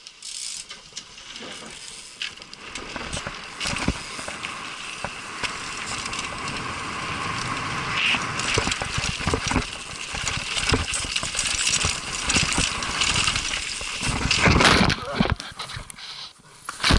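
Mountain bike descending a rocky downhill trail, heard from a camera on the rider: wind rushing over the microphone, tyres on dirt and stone, and the bike rattling and clattering over the bumps. Near the end the rider crashes, a loud rush followed by a hard knock as he goes down.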